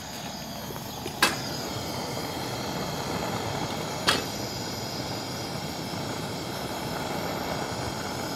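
Gas torch fed from a gas bottle burning with a steady hissing rush, its flame aimed into a clogged exhaust pipe. Two sharp clicks, about a second in and about four seconds in, stand out above it; the first is followed by a slightly louder flame.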